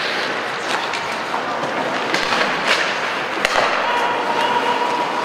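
Ice hockey play: skates scraping across the ice, with several sharp knocks of sticks and puck, over the general noise of the rink.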